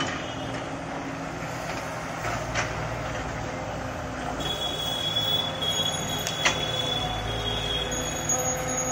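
Caterpillar E120 hydraulic excavator's diesel engine running steadily as it digs. There are a couple of sharp knocks, and a high squeal comes in about halfway through and lasts a few seconds, with another shorter one near the end.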